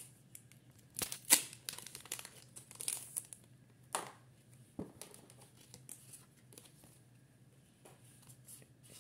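A foil booster-pack wrapper crinkling and tearing as a pack of Pokémon trading cards is opened and handled. The sharpest, loudest crinkles come in the first four seconds; quieter rustling follows.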